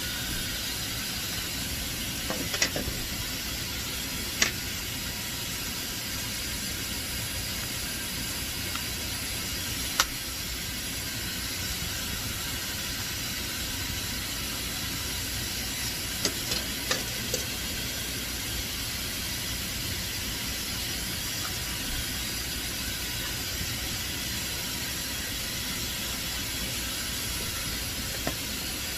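Dyson hair dryer running steadily, an even rushing hiss of blown air, with a few light clicks and knocks from handling scattered through it.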